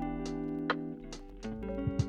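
Background music: plucked guitar notes with a steady, regular beat.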